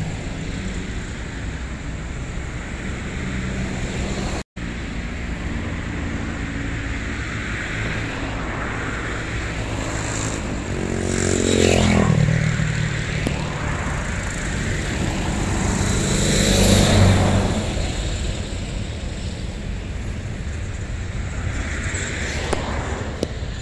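Motor vehicles passing close by over a steady engine hum. About halfway through, one goes past with its engine pitch dropping, and a second passes a few seconds later. The sound breaks off for an instant about four seconds in.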